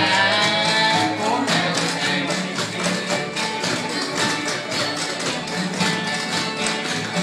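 Bluegrass band playing a tune on fiddle, banjo, guitar and upright bass, with a quick, even tapping of dancers' shoes on the floor keeping time.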